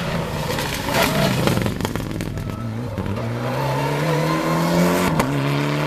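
Mitsubishi Lancer Evolution X rally car's turbocharged four-cylinder accelerating hard past at full throttle. There is a flurry of sharp cracks about a second in. The engine note then climbs steadily, drops abruptly at an upshift a little after five seconds, and climbs again.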